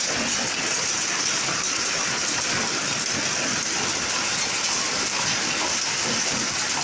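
Heavy rain falling: a steady, even hiss with no breaks.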